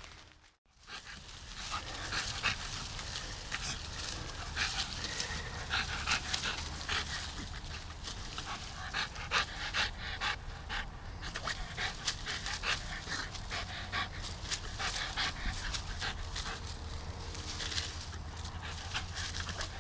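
A dog rolling on its back in dry leaf litter, the leaves crackling and rustling in many short bursts while the dog pants.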